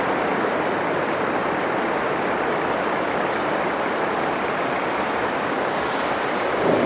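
Steady roar of Atlantic surf breaking on a sandy beach, swelling a little louder near the end.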